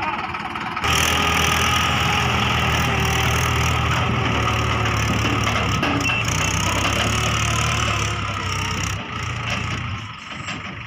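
Sonalika DI 60 tractor's diesel engine getting suddenly louder about a second in and running steadily hard as it pulls away with the emptied tipping trolley, then fading near the end as it moves off.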